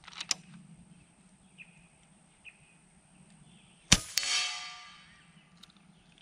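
FX Impact .30-calibre PCP air rifle firing once, about four seconds in, with a sharp crack. A fraction of a second later comes a metallic ring from the pellet striking the target downrange, fading over about a second. A sharp click comes just after the start.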